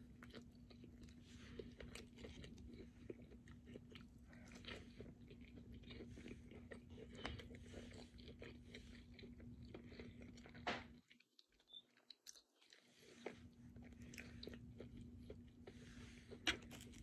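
Faint chewing and mouth sounds of a person eating, with soft irregular clicks, over a steady low hum. About two-thirds of the way through, everything drops out for about two seconds.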